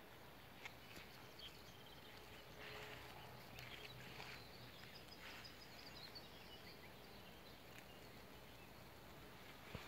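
Near silence: faint outdoor ambience, with a few faint high chirps in the middle and a few soft ticks.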